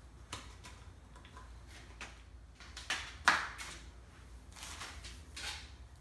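Plastic oil jug and funnel being handled while engine oil is poured in: scattered light clicks and knocks, a sharp knock about three seconds in, and a few short gushing sounds near the end.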